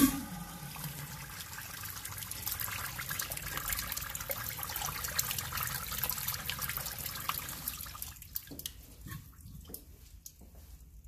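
Crane urinal flushed by its chrome flush valve: a sharp clack as the valve trips, then water rushing through the bowl, tapering off after about eight seconds.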